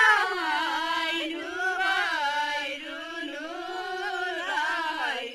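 Young Nepali women singing a Deuda folk song in unison, unaccompanied, in long held notes that glide between pitches.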